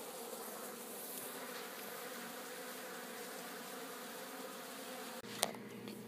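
Honey bees buzzing steadily at low level, over a faint hiss of rain. The sound ends abruptly with a click about five seconds in.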